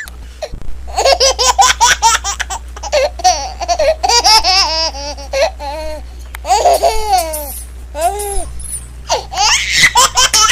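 High-pitched laughter in rapid, repeated fits, over a steady low hum.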